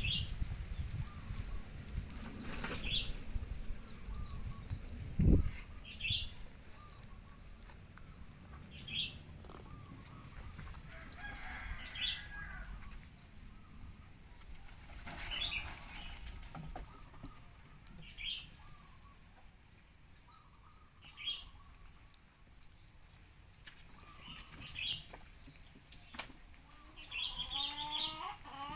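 Short, high animal calls repeating about every three seconds. A single low thump comes about five seconds in, and a quicker run of pitched calls comes near the end.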